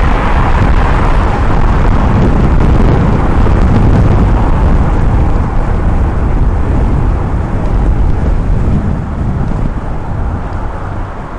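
Wind rushing and buffeting over a moving camera's microphone, with road noise, loud and low. It eases off over the last few seconds as the rider slows.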